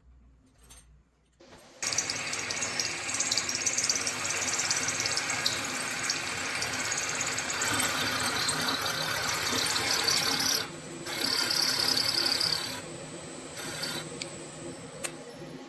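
Power drill spinning a ball hone in a cylinder head's valve guide bores, running steadily with a short break about two-thirds of the way through and quieter near the end.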